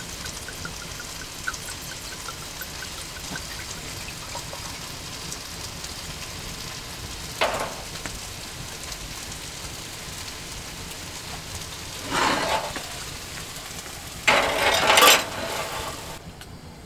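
Red wine poured from a bottle into a large wine glass, gurgling in quick, even pulses for the first few seconds over a steady hiss. A short sharp knock comes about seven seconds in, and two louder rushing noises follow near the end.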